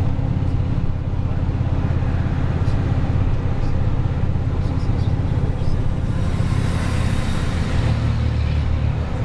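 Truck engine running steadily as it drives, a low, even drone. A rushing hiss swells and fades about six to eight seconds in.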